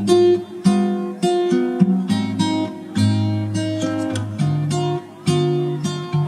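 Background music: an acoustic guitar being strummed and plucked, with a new chord or note struck about every half second.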